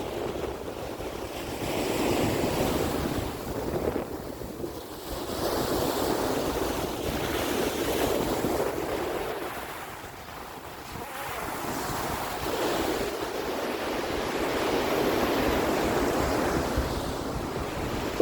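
Sea waves washing onto the shore, the surf swelling and falling back every few seconds, with wind buffeting the microphone.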